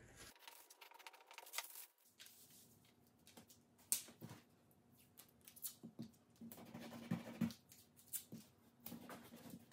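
Faint scattered clicks and rustles of freezer paper being handled and cut with a small knife, with blue painter's tape being torn off and pressed down in the second half.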